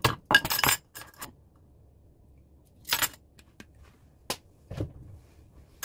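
Stainless steel measuring spoon clinking and tapping against a wooden spoon and glass dish while sesame seeds are tipped out: a quick cluster of clicks and rattles in the first second or so, then a few single clinks.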